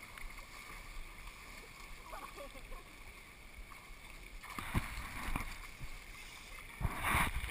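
Pool water sloshing and splashing close to a camera at the water's surface, with a few short splashes past the middle and a louder splash near the end. Faint voices of swimmers.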